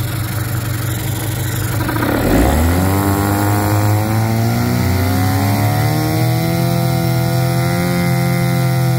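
1995 Mercury 8 hp two-stroke outboard running in forward gear in a test tank, its propeller churning the water. About two seconds in the engine speed dips briefly, then climbs over a few seconds and holds steady at a higher speed. The engine is running well after its carburettor rebuild and tune-up, which the mechanic calls good to go.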